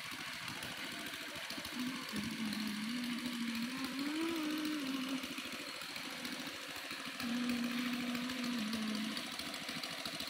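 A small engine running steadily with a fast knocking beat, its drone wavering up and down in pitch.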